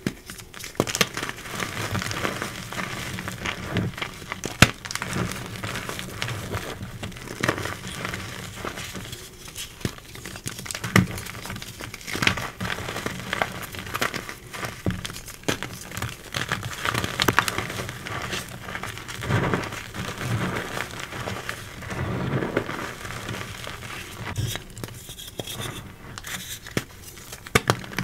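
Re-formed gym chalk crushed and crumbled between bare hands in loose chalk powder: gritty, crunchy crackling throughout, with a few sharp snaps as chunks break.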